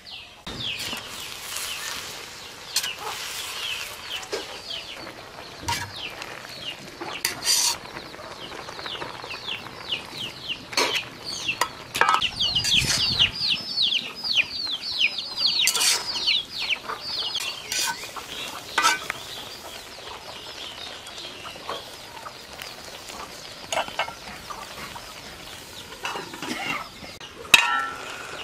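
Birds chirping in a fast run of short, high, falling notes, busiest around the middle, over scattered clinks of a metal spatula in an aluminium pot of frying jute leaves. Near the end a metal lid is set on the pot with a sharp clank.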